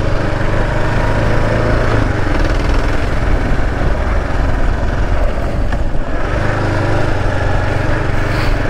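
Kawasaki KLR 650's single-cylinder engine running steadily as the bike is ridden along a dirt track. Its low engine note is weaker for a few seconds in the middle and comes back stronger near the end.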